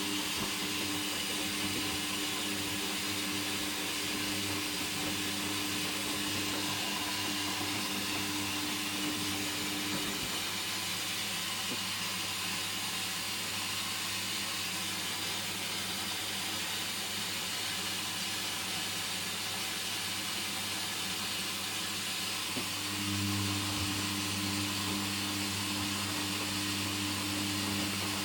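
Hoover Dynamic washing machine in its second rinse: a steady hiss of running water and machinery with a low mains-like hum that stops about ten seconds in and comes back, a little louder, near the end.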